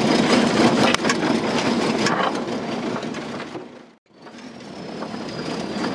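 Off-road 4x4 driving over a rough forest track, heard from inside the cab: the engine under a rattling, crackling jumble of the body and the ground under the tyres, with a sharp crack about a second in and a faint steady high whine. The sound fades out just before four seconds in and fades back up to the same driving noise.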